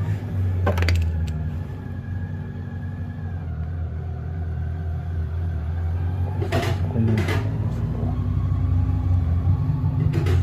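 Steady low rumble, like an engine running nearby, with a few sharp metallic clicks and knocks from footpeg parts being handled: about a second in, twice at six to seven seconds, and again near the end.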